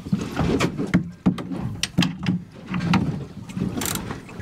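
A run of irregular knocks and clicks as fishing rods and gear are handled aboard a small boat.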